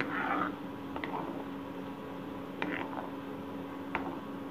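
Steel ladle stirring melting butter in an iron kadai, with a few light ticks of the ladle against the pan, over a steady low hum.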